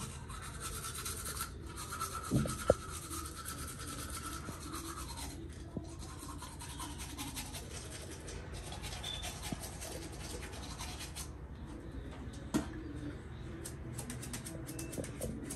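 Toothbrush scrubbing teeth in quick, even back-and-forth strokes, with a couple of short knocks about two and a half seconds in and another near the end.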